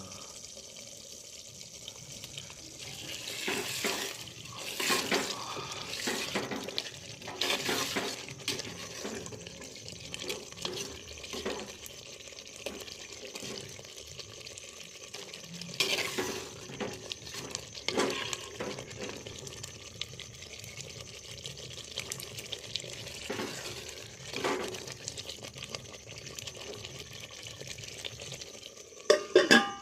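A spoon or ladle stirring and scraping food in a cooking pot, in irregular strokes over a steady hiss.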